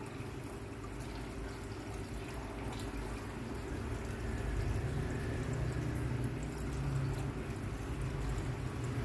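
Aquarium filter running: a steady trickle and splash of water over a low hum, a little louder from about halfway.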